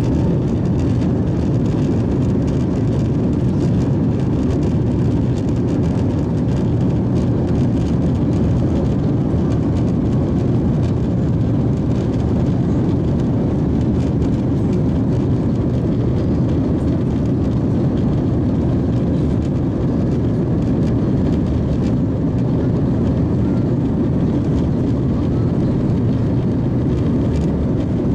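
Airbus A350-900 cabin noise in flight: a steady, even drone of engines and air rushing past the fuselage, strongest in the low range.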